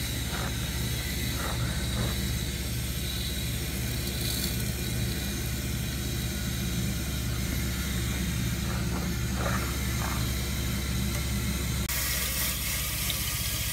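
Washing machine running behind a wall: a steady low drone with a rhythmic pulse, strong enough to shake the water in the toilet tank. About twelve seconds in the drone changes and a steady hiss joins it.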